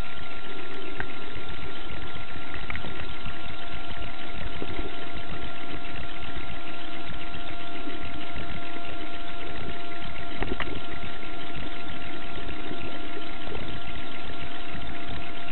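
Steady engine drone with a constant high whine, unchanging in level, with a few faint ticks.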